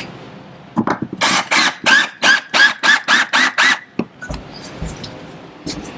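Cordless drill driving a screw into the wall in short trigger pulses, about three a second, each a brief motor whine, with a few clicks of handling around it.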